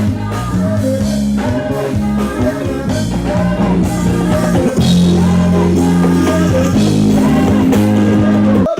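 Loud pop music with singing and a steady bass line, cutting off abruptly near the end.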